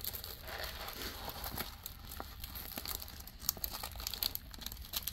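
Plastic cover film on a diamond painting canvas crinkling and crackling as it is handled, with scattered small clicks.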